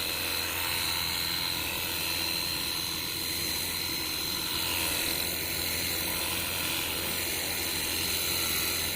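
Cordless 20-volt pressure washer running steadily while spraying water, a high whine over a low hum.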